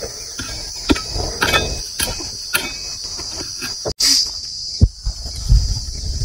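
A short-handled hoe chops and scrapes into dry soil in repeated strokes over a steady high buzz of insects. The chopping stops at a cut about four seconds in, and the insects carry on.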